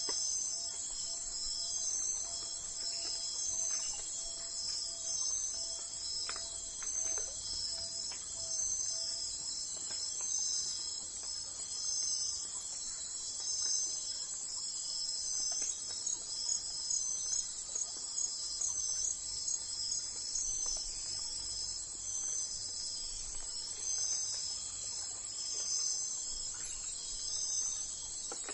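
Crickets chirping steadily, high-pitched chirps repeating about once a second.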